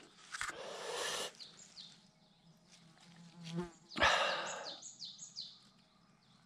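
Two bursts of rustling in dry leaf litter and soil, about a second in and about four seconds in, with a fly buzzing close by just before the second burst.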